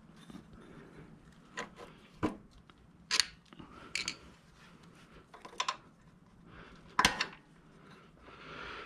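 Metal clicks and scrapes of a screwdriver working a footpeg's pivot pin into its mount against the pressure of the peg's spring. About half a dozen sharp clicks come at irregular intervals, the loudest about seven seconds in.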